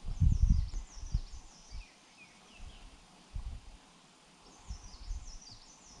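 Grey-capped greenfinches chirping: two quick runs of high, falling notes, one about half a second in and one near the end. Low thumps come and go underneath, loudest in the first second.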